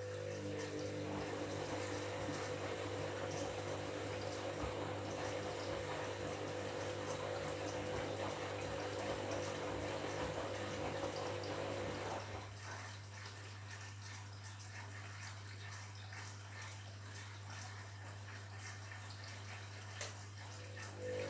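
Washing machine taking in water: a steady rush of water with a humming tone that cuts off about halfway through, leaving a quieter hum, then starts again near the end.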